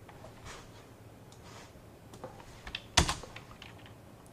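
Computer keyboard being typed on: a handful of scattered keystrokes, with one louder keystroke about three seconds in.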